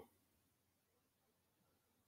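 Near silence: a pause in the read-aloud narration.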